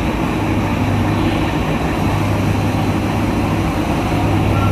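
Heavy diesel engine of a UD Trucks Quester GWE 370 tractor unit running steadily, a constant low drone with a deep hum, inside a ship's enclosed vehicle deck.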